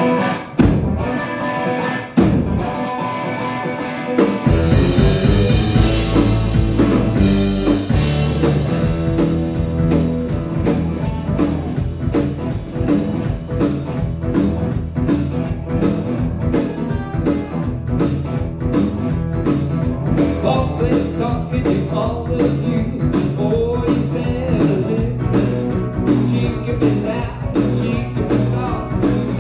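Live blues-rock band playing a song's opening. Electric guitar leads for about the first four seconds, then the bass and drums come in with a steady beat.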